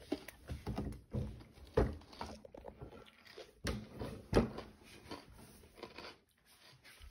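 A toddler chewing a chocolate-covered pretzel with a few separate crunches.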